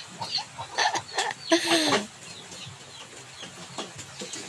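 Chickens clucking, with louder calls in the first two seconds, then fainter short falling calls.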